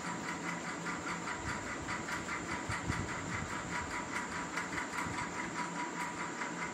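Steady machine-like background hum and hiss, with a faint even pulsing several times a second and no other event.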